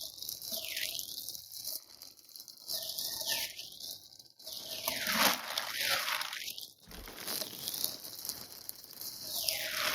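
Clear plastic packaging bags crinkling and rustling in irregular bursts as a parcel is unpacked by hand, loudest about five seconds in.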